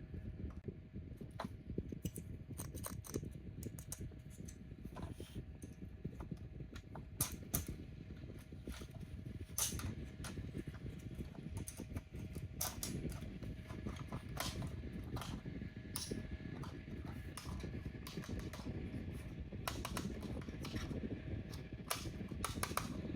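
Irregular light clicks and taps of plastic toy parts being handled, over a steady low hum.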